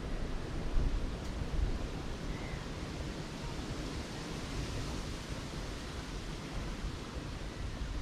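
Wind buffeting the microphone outdoors: an unsteady low rumble over a steady rushing hiss.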